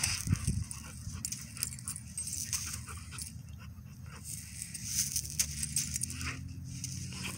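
Two dogs play-fighting, growling low, with rustling scuffles as they wrestle and roll on the ground.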